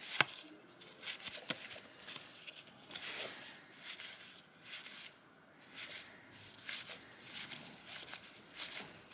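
Cardboard trading cards being handled and flipped through, a string of short soft swishes and rustles, with a sharp click just after the start.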